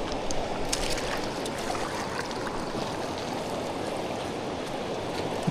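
Steady rush of flowing river water, with a few faint clicks about a second in.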